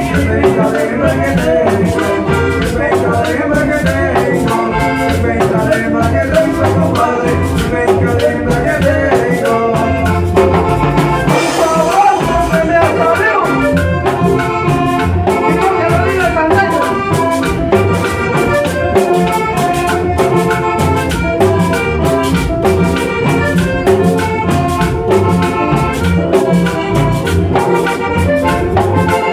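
Live band music with a button accordion leading the melody over electric bass and percussion, including a steady rhythm from a metal scraper.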